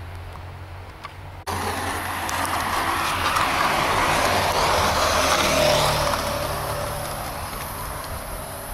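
A road vehicle passing by: a rushing noise that starts abruptly about a second and a half in, swells to its loudest a few seconds later, then slowly fades.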